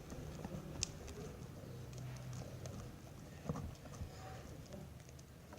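Slime being stirred with a pencil on a plastic plate: soft, irregular sticky clicks and taps, with a sharper tap about a second in and another about three and a half seconds in.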